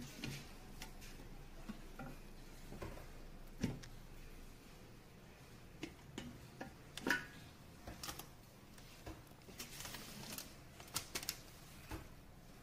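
Light clicks and knocks, a dozen or so at uneven intervals and some in quick pairs, from a non-stick cooking pot and its glass lid being handled.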